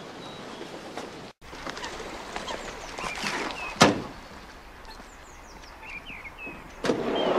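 Birds chirping over outdoor background noise while a minibus drives slowly up. There is a single sharp knock about four seconds in, and the sound grows louder near the end.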